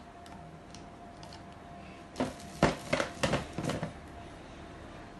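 A quick run of about half a dozen clicks and knocks from the drill's parts and accessories being handled, starting about two seconds in and lasting under two seconds.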